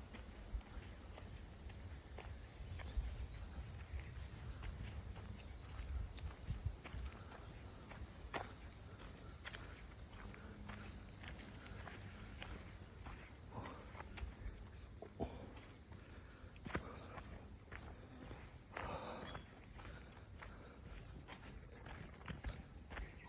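A steady, high-pitched drone of insects in summer woodland, with irregular footsteps crunching and scuffing along a trail beneath it.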